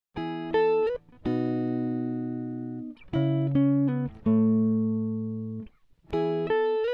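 Background music: a guitar playing short phrases of plucked, ringing notes, with brief pauses between the phrases.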